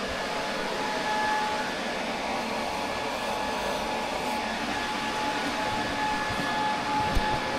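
A steady machine whir with a faint, steady whine, and a short knock near the end.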